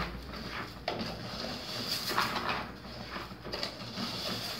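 Wooden spoon stirring rice as it fries in pork lard in an aluminium pot: a scraping stroke about every second over a steady frying hiss.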